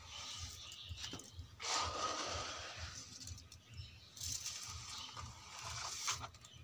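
A small metal bowl scraping through wet concrete mix of cement, sand and gravel, scooping it from a metal pan and tipping it into a plastic bucket mould. There are several separate scraping bursts, each about a second long.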